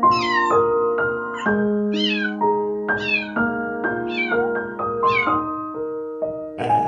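A kitten mewing over piano music: a run of short, high calls, each falling in pitch, about one a second. Near the end a different, noisier sound cuts in.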